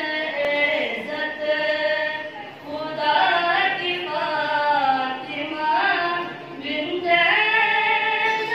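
A boy's solo voice singing a qasida (devotional praise poem) in long held, ornamented phrases that glide between notes, with two short breaks for breath.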